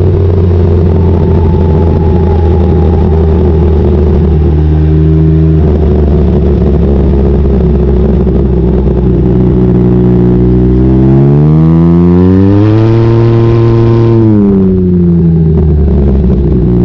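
Can-Am Ryker 900 ACE's three-cylinder engine running through an aftermarket Silber turbo exhaust with the baffle out, heard on the move. It runs steadily, then about eleven seconds in it revs up with rising pitch, holds for a couple of seconds, and drops back.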